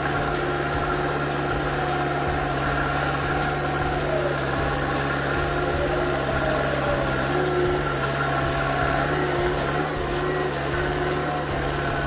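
JCB backhoe loader's diesel engine and drivetrain heard from inside the cab while driving: a steady low drone with a higher whine that wavers in pitch a few times.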